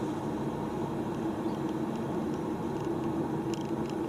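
Steady road and engine noise inside a moving car's cabin, with faint, irregular light ticks from the dash-mounted camera's loose zoom lever rattling in the vibration.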